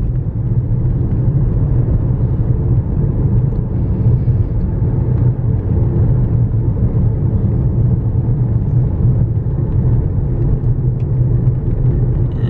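Steady low rumble of a car driving on a sealed bitumen road, heard from inside the cabin: tyre and engine noise with no change in pace.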